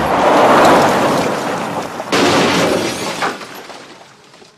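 Car crash: a four-wheel drive smashing off the road in a loud rush of crunching metal and shattering glass. A second hard impact comes about two seconds in, then the noise dies away.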